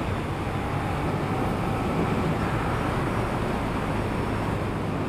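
Suzuki SFV650 Gladius V-twin engine pulling through a short burst of hard acceleration, heard under steady wind and road noise.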